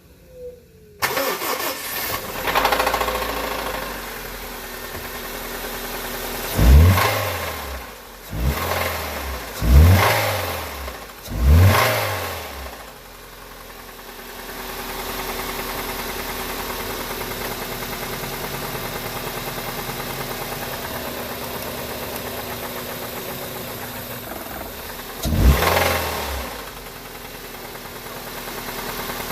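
2002 Honda Civic's 1.7-litre D17A four-cylinder engine starting about a second in, then running and revved in four quick throttle blips, with one more near the end. The owner takes its knock for a failed rod bearing, coming from the bottom end.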